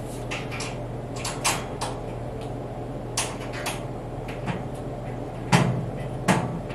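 Light clicks and knocks of screws and a small tool against a steel cabinet top as the top panel is screwed on at the corners, with two sharper metallic knocks near the end.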